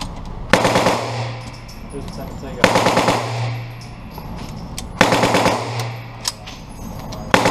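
Short bursts of full-automatic gunfire, four of them about two seconds apart, each a fraction of a second of rapid shots followed by a ringing echo off the range walls; the last begins near the end.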